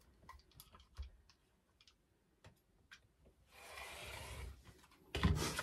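Light clicks and taps as an acrylic ruler and a sheet of vinyl are handled on a cutting mat. About three and a half seconds in comes a second of rasping scrape, then a louder knock near the end.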